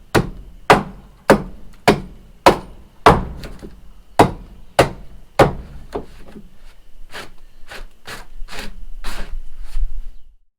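A hammer striking into timber, a steady run of blows just under two a second that turn lighter and quicker after about seven seconds, then stop abruptly near the end.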